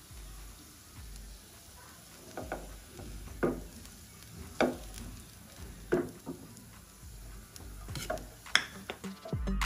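Spatula stirring in a frying pan over a faint sizzle, knocking and scraping against the pan at irregular intervals of about a second.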